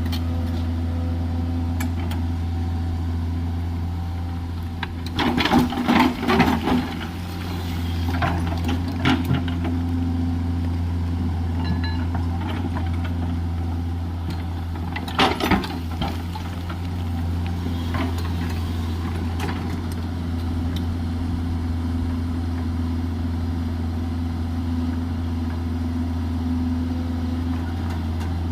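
JCB 210LC excavator's diesel engine running steadily at working speed, with two short clusters of loud knocks, about five seconds in and again about fifteen seconds in, as the machine works.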